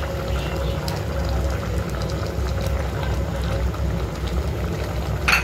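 Thick noodle soup simmering in a pot on a gas stove: a steady bubbling over a low rumble, with a sharp click near the end.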